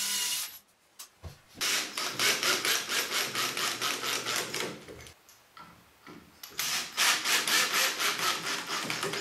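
Cordless drill with a wood bit boring pilot holes for the screws of a vise end cap into the plywood end of a workbench: a short burst right at the start, then two bouts of drilling of about three seconds each with a pause between.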